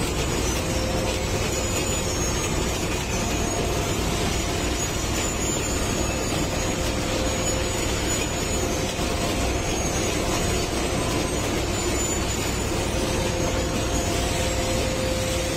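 Track-laying machine running as it travels over newly laid concrete sleepers: a steady machinery and engine drone with a low rumble.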